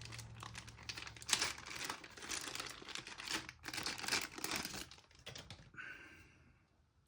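Packaging crinkling and rustling as the phone clamp is unwrapped, a dense run of small crackles that dies away about six seconds in.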